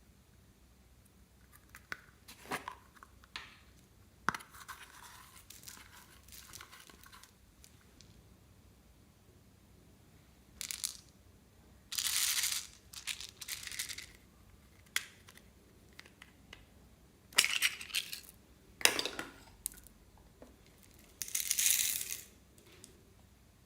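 Slime mixed with beads and floam being squeezed and worked by hand, giving irregular bursts of crackling and crunching with sharp clicks. Quiet gaps fall between the bursts, and the loudest ones come in the second half.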